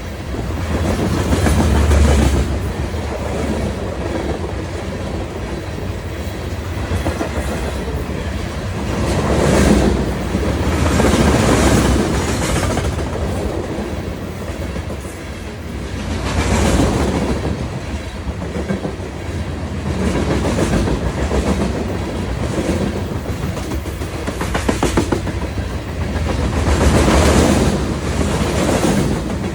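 CSX freight train rolling past slowly, its wheels clacking over the rail joints under a steady rumble that swells and fades every few seconds as the cars go by.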